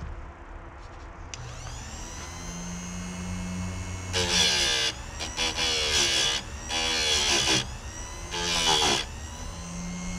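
Chicago Electric electric chainsaw sharpener's grinding-wheel motor spinning up with a rising whine about a second in, then four short grinding passes as the wheel is brought down onto chain teeth. The whine dips in pitch each time the wheel bites.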